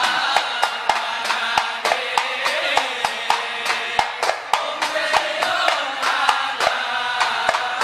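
Men singing sholawat together in the Ishari style, over a fast, steady beat of terbang frame drum strokes and hand claps, about four strokes a second.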